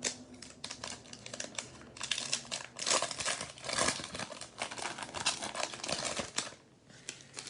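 A trading card pack being torn open, its wrapper crinkling, and the cards handled: a run of crackling and small clicks, busiest from about two seconds in, dying away near the end.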